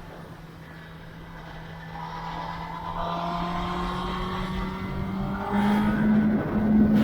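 2021 Kawasaki ZX-10R's inline-four engine heard from on the bike, running steadily at first, then rising in pitch and getting louder as the bike accelerates from about two seconds in.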